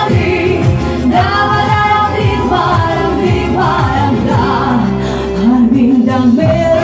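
A song with a singing voice over a steady accompaniment.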